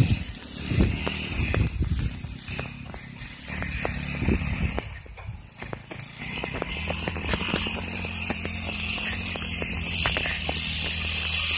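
GY6 single-cylinder four-stroke scooter engine in an off-road buggy, heard at a distance as the buggy climbs. It runs unevenly for the first few seconds, then settles into a steady drone from about the middle on, with scattered clicks over it.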